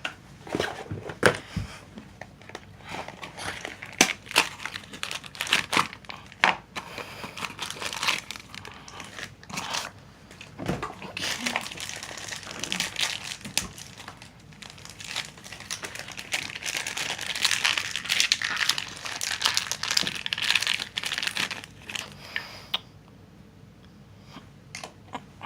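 A small toy mystery box being opened by hand, its packing crinkled and torn, with many sharp clicks and rustles of handling. It goes quieter near the end.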